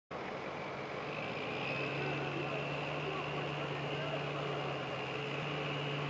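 Ford 6.0 L Power Stroke V8 turbodiesel of a 2003 F-350 running with a steady low drone, under a high turbo whistle that climbs slightly about two seconds in and then holds.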